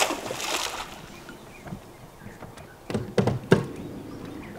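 A brief rush of hissy noise at the start, then a cluster of knocks and thuds on a bass boat's deck about three seconds in.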